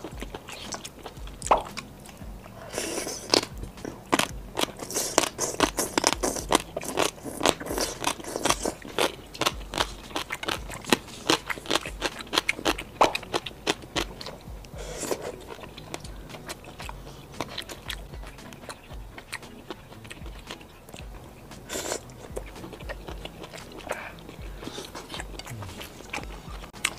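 Close-miked eating sounds: a person chewing food, with rapid crisp crunches packed densely through the first half, then sparser chews and a few single crunches.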